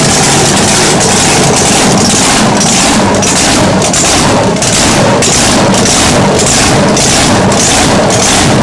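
Supercharged drag-boat racing engine running loudly at a lumpy idle, with an even pulse of two to three beats a second.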